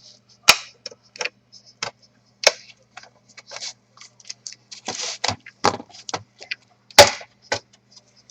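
Plastic bottom cover of a Dell Inspiron 3582 laptop being pried off, its clips snapping loose: a series of sharp plastic clicks and short scrapes. The loudest snaps come about half a second in, at two and a half seconds and at seven seconds.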